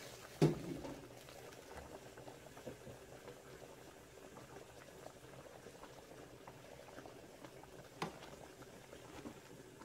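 Chicken broth with dumplings boiling in a large metal pot, a faint steady bubbling. There is a knock shortly after the start, and a metal spoon clinks against the pot about eight seconds in.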